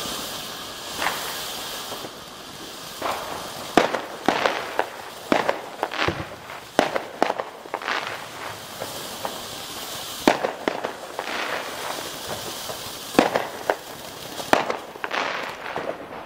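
Lesli 'Kippenvel' (Goose Bumps) ground fountain firework burning: a steady hiss of spraying sparks, joined from about three seconds in by many sharp crackling pops at irregular intervals.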